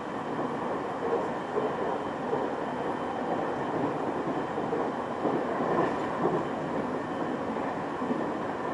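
Train running between stations, heard from inside the carriage: a steady rumble of wheels on rail with a few small irregular knocks.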